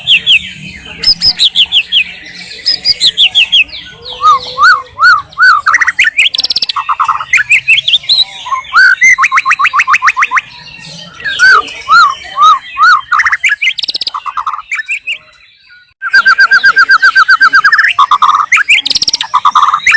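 White-rumped shama singing a loud, varied song of whistled phrases and fast repeated notes, pausing briefly about three-quarters of the way through before starting again with a rapid run of notes.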